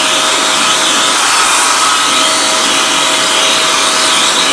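RAYBAO 1300 W handheld car dryer blower running steadily: a loud rush of air over a steady motor whine.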